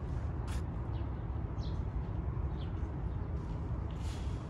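Outdoor background: a steady low rumble with a few faint, high bird chirps scattered through, and a brief soft rustle near the start and again near the end.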